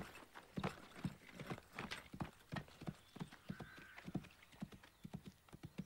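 Horses' hooves clip-clopping in irregular steps, several strikes a second, as a group of horses shifts and walks about.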